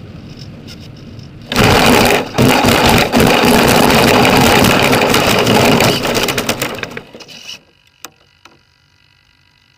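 Sig Kadet Senior model plane landing dead-stick on grass, its engine stopped: airflow rushes during the glide, then about a second and a half in it touches down. A loud, rough noise from the wheels and airframe rolling over the rough ground follows and dies away over about six seconds as the plane rolls to a stop, with a couple of small clicks at the end.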